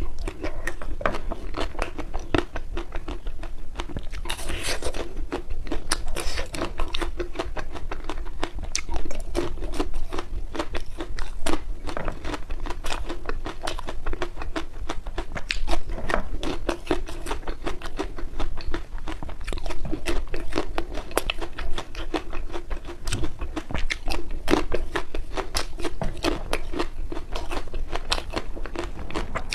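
A person biting and chewing ice cream close to the microphone: a dense, irregular run of small crunches and clicks, with a brief hiss about four seconds in.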